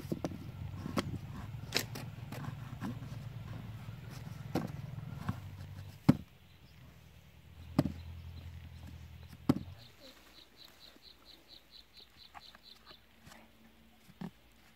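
Hands working a cardboard box and a thin wooden stick, with scattered knocks and rustles as the stick is pushed through and set against the box, over a low steady hum that stops about two-thirds in. Near the end comes a short run of fast, high chirps, about five a second.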